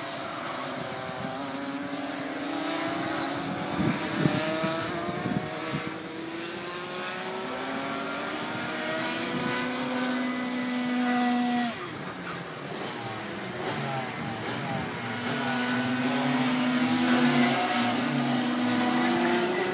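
Several Rotax Max senior racing karts with 125 cc single-cylinder two-stroke engines lapping the circuit, their engine notes rising and falling as they accelerate and slow for corners. One holds a high steady note that falls away sharply about twelve seconds in.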